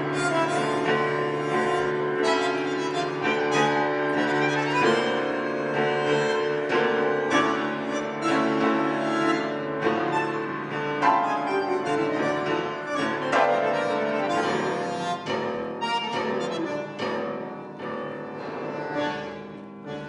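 Live instrumental music on grand piano with a bandoneón holding sustained notes, growing quieter over the last few seconds as the piece ends.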